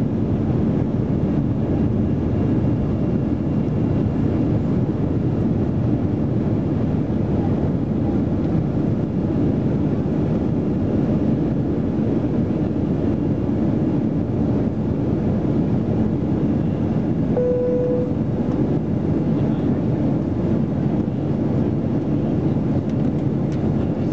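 Steady low rumble of cabin noise inside a Boeing 737-300 climbing after takeoff, from its CFM56-3 jet engines and the airflow. A short single tone sounds once, about two-thirds of the way through.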